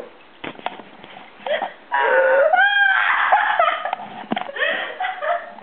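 A person's voice in high-pitched, wavering squeals and whines, starting about two seconds in, with a few short knocks.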